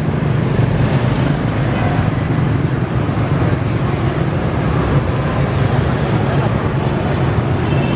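Dense city street traffic, mostly motorbikes and scooters streaming past in a continuous engine drone.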